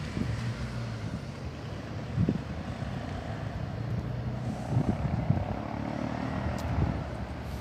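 A white minibus driving past, its engine running with a steady low hum that swells in the middle and eases off near the end, with irregular low thumps.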